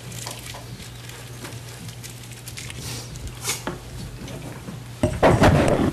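Small clicks, rustles and knocks of people moving, over a steady low electrical hum, with a louder burst of rustling and knocking about five seconds in.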